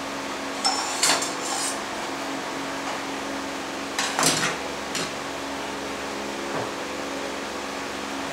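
Hard metal tools or parts clattering and knocking on a worktop, a sharp cluster about a second in and another about four seconds in, over a steady low machine hum.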